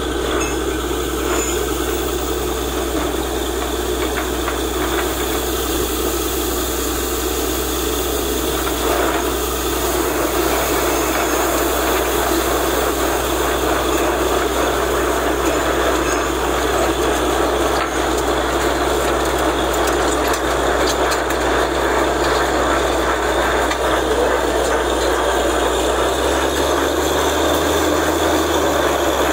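Borewell drilling rig running steadily under load: a deep engine drone under a broad rattling hiss as the drill bores and blows rock chips and water out of the hole. The engine note shifts near the end.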